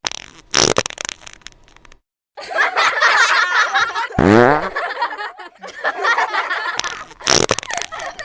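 Fart sound effects: a short sharp burst at the start, then a longer noisy stretch with a loud, falling, pitched fart about four seconds in, mixed with laughter.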